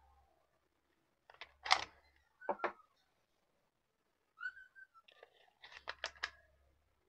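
Clicks and knocks of an 18650 lithium-ion cell being pulled out of and pushed into the spring-loaded slots of a LiitoKala Lii-PD4 battery charger, in two bursts, about two seconds in and again near the end. A brief wavering whistle-like chirp sounds a little before the last clicks.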